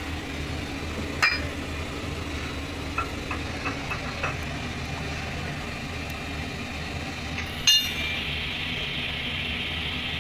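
Metal hand tools clinking against the steel frame of a truck-tyre bead spreader: a sharp clink about a second in, a few light taps after it, and a louder ringing clink about three-quarters of the way through, over a steady low hum. A steady hiss sets in near the end.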